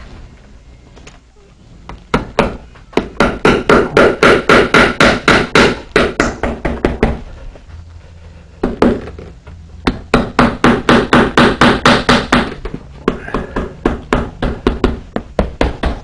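A hammer tapping rapidly on wet, heavy saddle-skirting leather over a saddle tree's bar, working the leather down to fit around the bar. Two long runs of about five or six taps a second, the second starting about halfway through, then a few scattered taps near the end.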